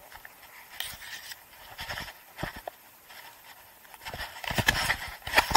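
Irregular knocks and rustles of gear and clothing handling noise against a body-mounted camera as a fly angler casts and strips line, with a dense run of loud knocks and scuffs from about four seconds in to the end.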